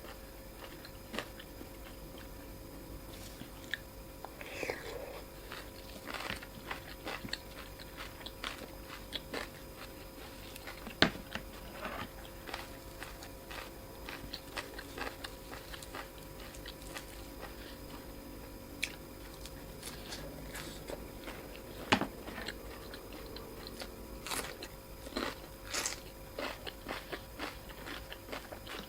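Close-miked eating of Thai boat noodles: chewing and biting with many small wet clicks, and two louder sharp clicks about 11 and 22 seconds in.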